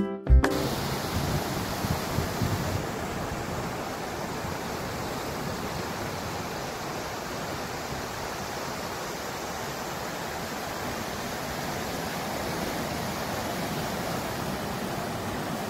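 Ocean surf washing on a beach: a steady, continuous rush of waves, a little louder in the first few seconds.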